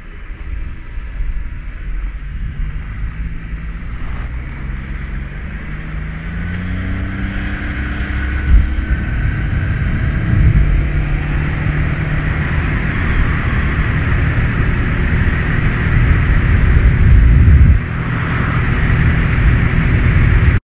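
Small aluminium boat's outboard motor speeding up, its pitch rising over the first several seconds, then running hard at speed with wind rushing over the microphone. The engine note drops for a moment a few seconds before the end.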